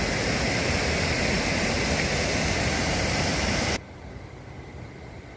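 Steady rushing of fast-flowing floodwater, a loud even hiss that cuts off suddenly a little under four seconds in, leaving a fainter hiss.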